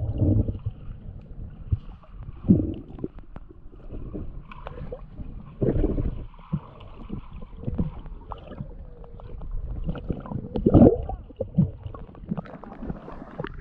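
Water sloshing and gurgling right at the microphone in irregular surges and thumps, sounding muffled, as from a camera at or under the water's surface.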